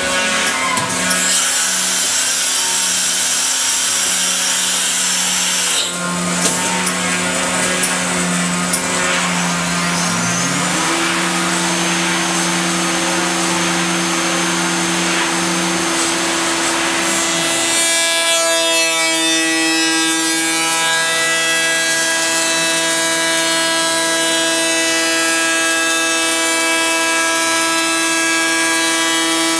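Busellato Jet CNC machining centre routing a wooden door panel: a steady machine whine over the hiss of cutting. About ten seconds in one tone rises in pitch, and just before eighteen seconds the sound changes to a steadier whine made of many even tones.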